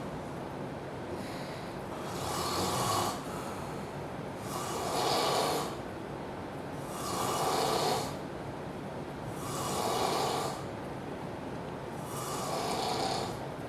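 A man snoring loudly and regularly: a rasping snore about every two and a half seconds, five in all, with quieter breathing between them.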